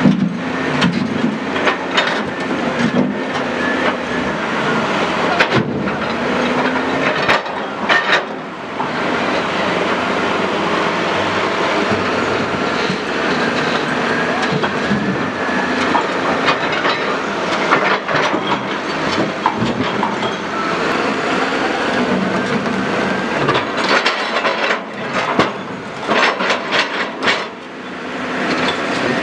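Heavy quarry machinery running steadily, with repeated metallic clanks and knocks, thickest near the end.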